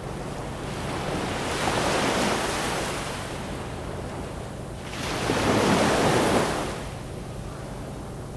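Ocean waves surging in, two swells a few seconds apart, each building and then falling back, over a faint steady low hum.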